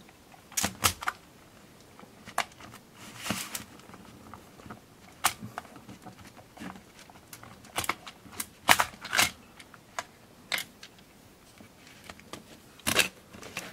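Plastic case of a Casio VL-1 keyboard being handled and prised apart by hand: scattered clicks and short knocks of plastic parts, some coming in quick clusters.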